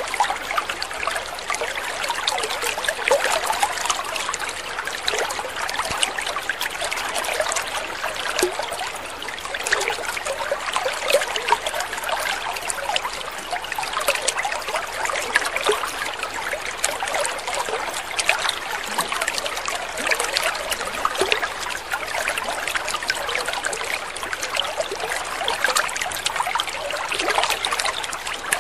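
Water trickling and splashing steadily in a continuous bubbling patter, without pause.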